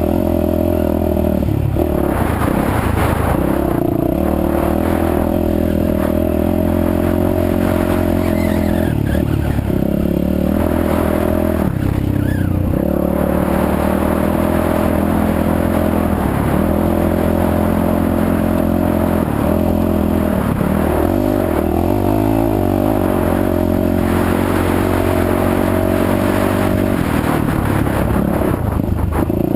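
Yamaha WR450F single-cylinder four-stroke engine, freshly rebuilt with a new piston and rings, running steadily, its note shifting and wavering now and then with the throttle.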